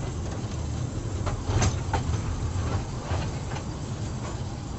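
Mini toy train rolling along its track, heard from aboard an open coach: a steady low rumble with irregular clicks of the wheels over the rail joints.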